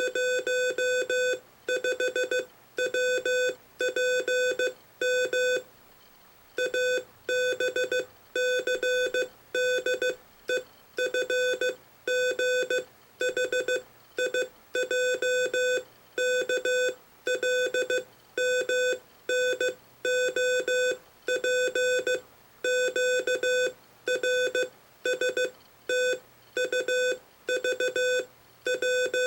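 Morse code sidetone: one steady beep keyed on and off in dots and dashes at 15 words a minute, sent with an electronic keyer and paddle, with a longer gap between words about six seconds in.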